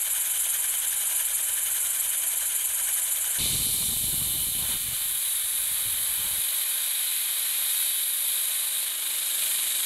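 Compressed air hissing steadily from an air nozzle into a small LEGO double-action piston engine with a 2x2 piston and valve, which is running very fast on the air. A lower rumble joins the hiss for about three seconds in the middle.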